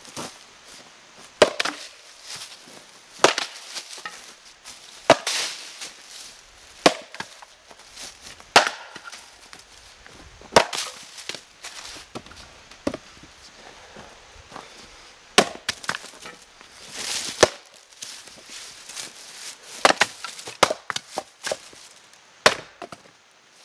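An axe splitting firewood rounds on a chopping block: a dozen or so sharp cracking strikes, roughly one every two seconds, with smaller wooden knocks between the blows.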